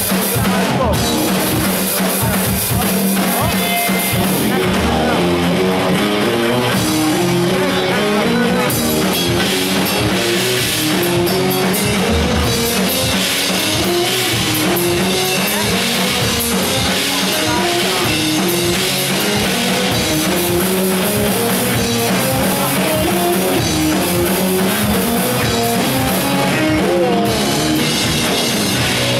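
Rock band playing live: electric guitars over a drum kit, loud and steady, with a riff that climbs and falls in steps.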